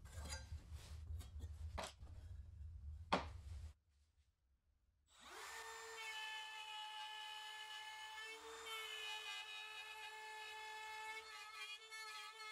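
Workshop tool noise: a small power tool running with a low hum, scraping and clicks, ending in a sharp click about three seconds in. After a brief silence, background music comes in with one long held note.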